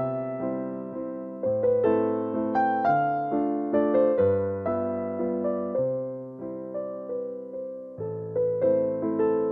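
Gentle background piano music: single notes and chords struck a few times a second, each ringing out and fading.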